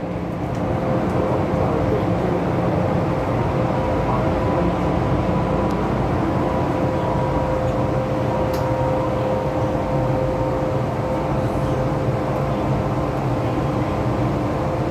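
MTR M-Train standing at a platform with its doors open: its on-board equipment and ventilation hum steadily, with a thin steady whine that stops about nine seconds in.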